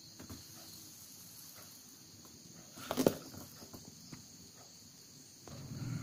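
Paper rustling as a book's pages are handled, loudest in one brief crackle about halfway, over a faint steady high hiss. A low, steady buzzing hum comes in near the end.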